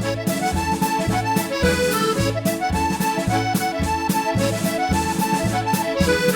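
Solo accordion playing a Scottish reel: a quick melody over a steady, evenly pulsing bass-and-chord accompaniment.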